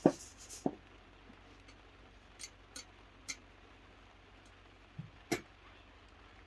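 A few scattered clicks and light knocks, about seven in all, the first the loudest and another sharp one near the end.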